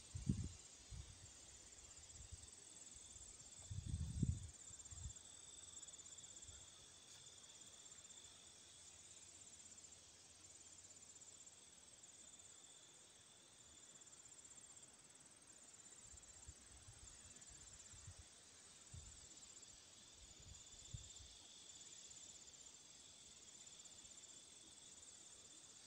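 Faint, steady chirping and trilling of crickets or similar insects in summer grass. There are brief low rumbles on the microphone at the start, about four seconds in, and again in the second half.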